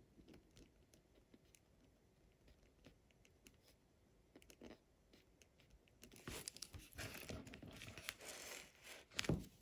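A pen writing by hand on a workbook page. Faint short scratches come at first, then a louder stretch of paper scratching and rustling starts a little past halfway.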